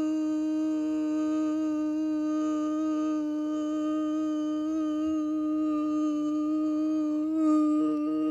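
A person humming one long, steady note with a rich, buzzy tone, wavering slightly near the end.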